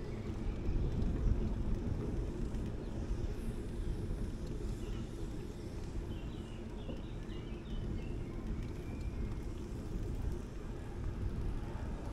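Outdoor ambience: a steady low rumble, with faint high chirps around the middle.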